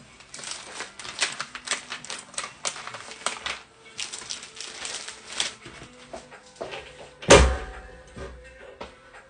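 A quick run of crackling, rustling clicks, like material being handled, then about seven seconds in a single loud clunk as the clamshell heat press is swung open.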